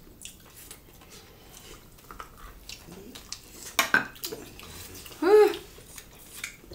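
Wet squelching and small clicks of fingers mixing rice and curry on plates and of eating by hand, with a sharper clatter about four seconds in. A short voiced "mm" that rises and falls in pitch comes about five seconds in and is the loudest sound.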